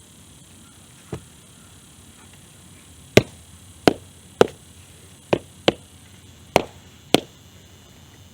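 A series of sharp knocks from hard objects being struck: one faint knock about a second in, then seven loud, irregularly spaced strikes.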